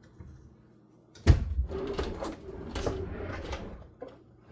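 Kitchen items being handled on a counter: a sharp knock a little over a second in, then about three seconds of irregular clattering and shuffling that fades near the end.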